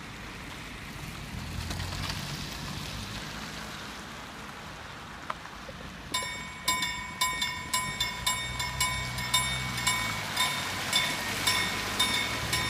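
Car tyres hiss over a wet road and engines hum as traffic passes. About halfway through, a level-crossing warning bell starts ringing in sharp metallic strokes, about two a second, signalling that a train is approaching and the crossing is closing.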